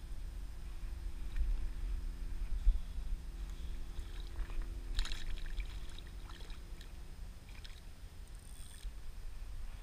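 Wind buffeting the microphone, with a faint steady hum that dies away about seven seconds in. Small knocks and rustles from handling a hooked fish, the loudest near the middle.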